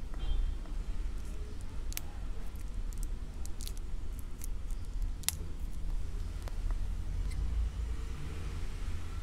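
Cellophane shrink-wrap on a card box crinkling under the fingers, with a few sharp crackles as it is picked at, then scissors coming to the wrap near the end, all over a steady low rumble.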